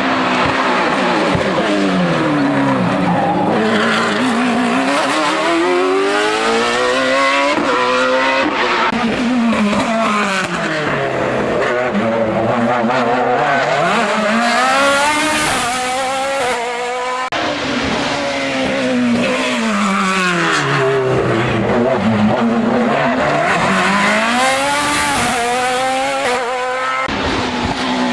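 Hillclimb racing car engine running hard on a mountain course, its pitch falling and climbing again in long sweeps about three times as it brakes and accelerates through the bends.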